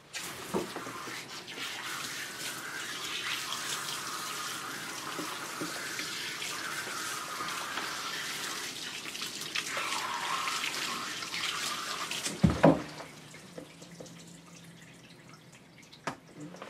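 Grooming-tub spray nozzle running, water hissing steadily onto a wet dog's coat to rinse out shampoo. About twelve seconds in the spray stops with a loud knock, and only faint drips and small sounds remain.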